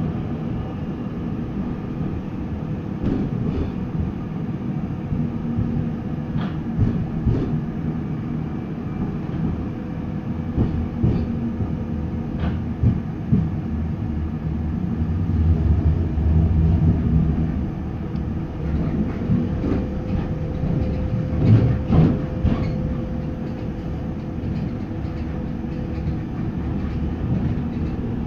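Running noise of a TW6000 light-rail car at speed, heard from inside the car: a steady low rumble of wheels on track, with a thin steady whine and scattered sharp clacks as the wheels pass over the rails. The rumble swells for a couple of seconds past the middle, and there is a louder clack a little later.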